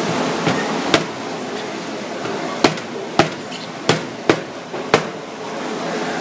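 About six sharp knocks of a kitchen knife striking a plastic cutting board as it cuts through a red spotted grouper's backbone, spaced irregularly over about four seconds, over a steady background hum.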